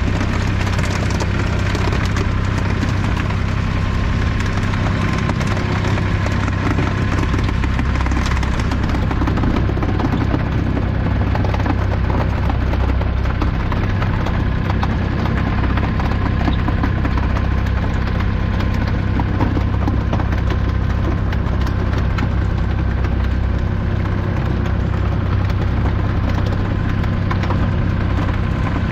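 A small fishing boat's motor running steadily at idle with a rapid chugging, over water splashing at the hull.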